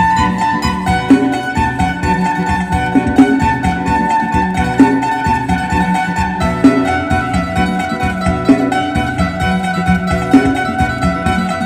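Phin, the Isan plucked lute, playing a fast lam sing melody over a held drone, with a steady beat underneath.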